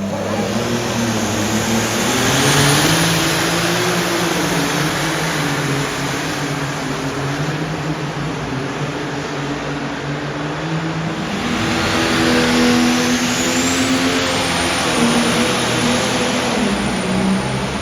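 Loud engine running hard, with a high whine that rises and then holds steady, twice: once about two seconds in and again about eleven seconds in.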